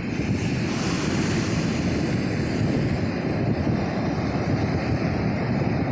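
Big ocean waves breaking and washing on a beach, with wind buffeting the microphone. A brighter hiss of breaking surf swells about a second in and eases off after about three seconds.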